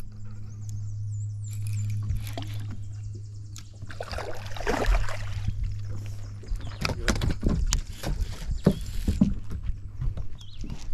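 A hooked smallmouth bass being landed: a steady low hum, a splash-like rush of noise about four seconds in, then a run of sharp knocks and thuds as the fish is handled in the boat.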